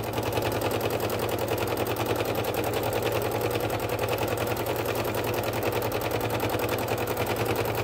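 Domestic sewing machine free-motion quilting with a darning foot and lowered feed dogs, its needle stitching through a cotton-and-batting quilt sandwich. It runs at a steady speed in a rapid, even clatter and stops abruptly at the end.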